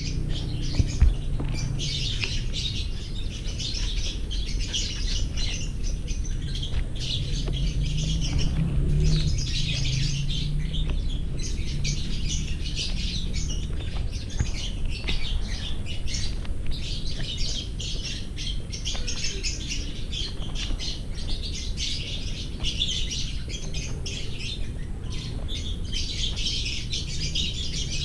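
Many birds chirping and chattering together without a break, over a steady low hum.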